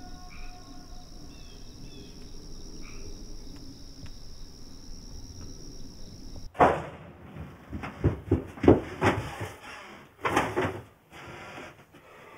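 A steady high insect drone over quiet outdoor ambience. About six and a half seconds in it cuts off, and a run of irregular knocks and bumps follows.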